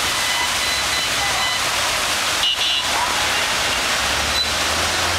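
Steady rush of floodwater pouring along a flooded road, with passing traffic mixed in.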